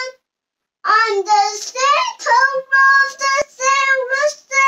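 A young child singing in a high voice, phrase after phrase of short held notes, picking up again after a brief pause near the start.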